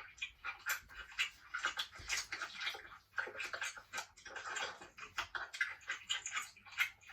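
Mukbang eating sounds: close-miked wet chewing and smacking of seafood, heard as a quick, irregular run of squishy clicks.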